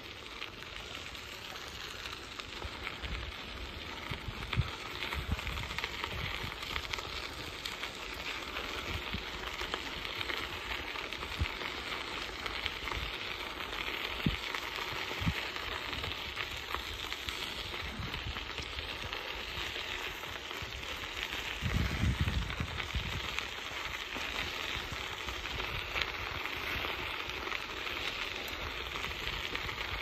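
Bicycle tyres rolling on a gravel path: a steady hiss with low wind buffets on the microphone, strongest about 22 seconds in.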